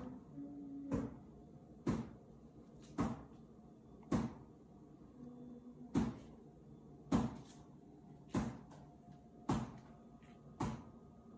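A regular series of sharp knocks, about one a second, each with a short ringing tail, with a brief low tone sounding twice between them.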